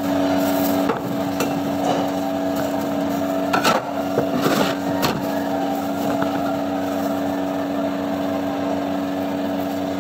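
A steady machine hum with a constant low tone. A few knocks and slaps around four to five seconds in come from gloved hands working thin chicken breast slices on a wooden chopping block.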